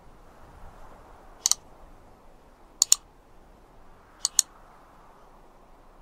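Three sharp double clicks, evenly spaced about a second and a half apart, over a faint steady hiss.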